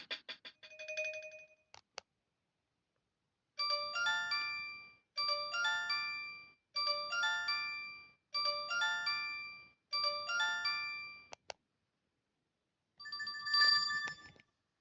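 Alcatel OT-217D mobile phone ringtones playing one after another. One tone ends early on, then after a pause a short electronic tune of quick stepping notes repeats five times. After a click, a fast repeating two-tone ring starts near the end.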